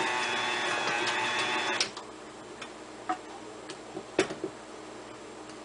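KitchenAid Classic tilt-head stand mixer running steadily as it beats soft cookie dough, switched off abruptly about two seconds in. A few light clicks and knocks follow as the mixer head is tilted back and the beater is handled, the sharpest about four seconds in.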